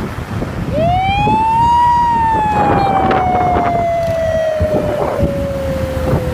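A man's voice imitating a police siren: one long wail that starts about a second in, rises, then slowly falls for several seconds. Under it, the steady rumble and wind noise of a motorbike riding through traffic.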